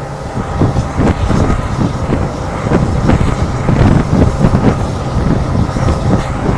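Passenger train running at speed behind a WDP4D diesel-electric locomotive: a loud rumble with rapid, irregular clattering of wheels on the track.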